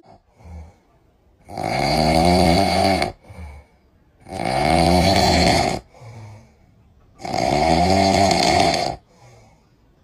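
Loud snoring: three long snores about three seconds apart, each rising a little in pitch, with a soft short breath between them.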